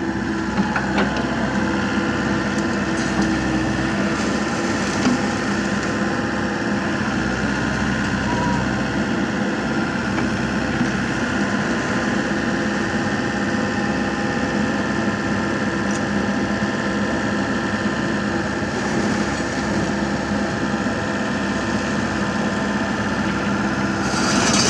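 Komatsu mini excavator's diesel engine running steadily as the machine digs a trench, with a few light knocks in the first few seconds.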